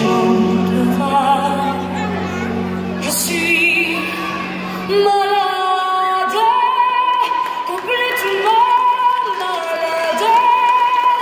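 Music with a woman singing long held notes with vibrato. The low accompaniment under the voice drops away about five seconds in.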